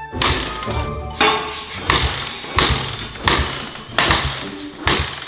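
Kick-starter of a cheap Amazon dirt bike being stamped over and over in quick succession, about seven kicks, roughly one every 0.7 seconds. Each kick is a sharp thump with a brief low rumble of the engine turning over, and the engine does not catch.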